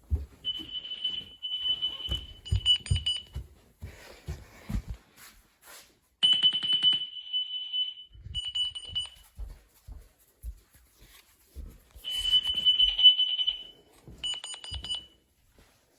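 Carbon monoxide alarm going off under test: a high piezo tone in three groups of beeps, about one group every six seconds with quiet gaps between, some beeps pulsing with a buzz. Short low bumps of handling sound in between.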